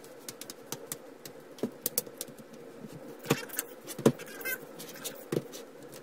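Lenovo ThinkPad W550s's plastic bottom cover clicking into place as it is pressed down along the edge: a string of irregular snaps from its clips, the two loudest about three and four seconds in.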